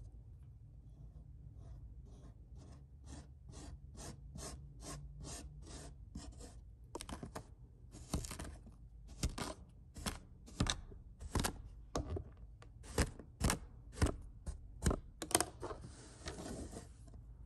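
Kinetic sand being cut and scraped with plastic sand tools: a run of short crisp crunches, about two a second, faint at first and louder from about halfway.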